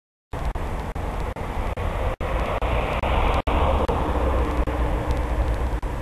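Road traffic noise: a steady rumble that cuts in just after the start and swells about three to four seconds in as a vehicle passes.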